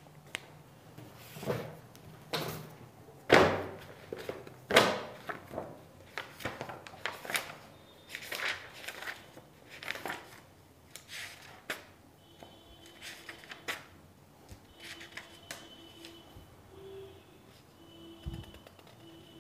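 Irregular knocks and thuds with rustling between them, the two loudest about three and a half and five seconds in, and faint steady tones in the second half.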